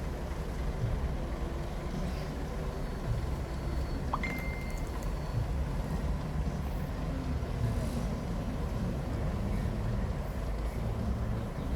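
Heavy earthmoving machine's engine running with a steady low rumble. A brief high chirp sounds about four seconds in.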